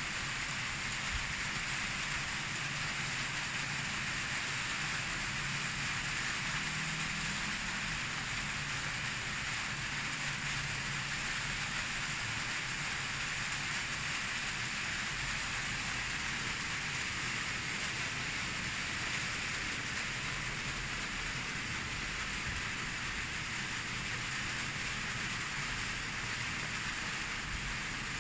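Steady background hiss with a faint low hum.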